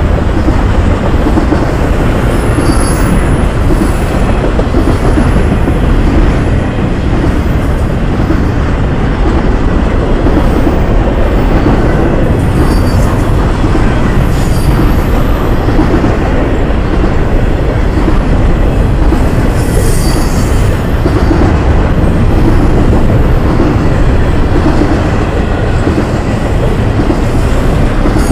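Intermodal freight train cars rolling past close by: a loud, steady rumble of steel wheels on rail, with brief high wheel squeals several times.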